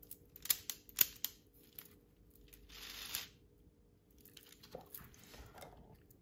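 Plastic LEGO Technic parts clicking and rattling as the model engine and gearbox block is turned over in the hands. A quick run of sharp clicks comes in the first second and a half, the loudest about a second in, followed by two brief stretches of rustling handling noise.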